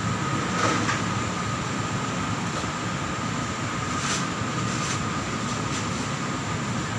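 Steady background hum and hiss with a faint steady high whine, broken by a few brief soft noises.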